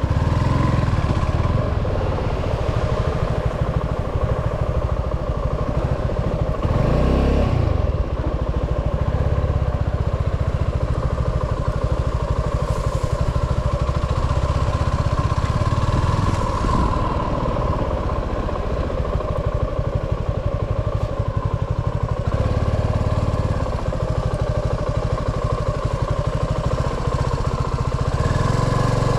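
Suzuki V-Strom 250 SX's single-cylinder engine running on the move, its revs swelling and easing off several times.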